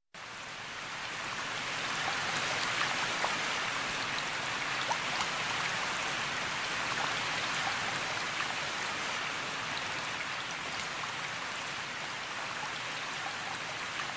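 Steady hiss of rain with scattered faint drop ticks, starting suddenly and swelling over the first two seconds.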